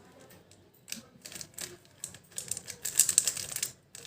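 Plastic twisty puzzle cube being turned fast by hand during a speedsolve: rapid runs of clicking and clacking from the pieces. The turning starts about a second in and grows denser from about two seconds in.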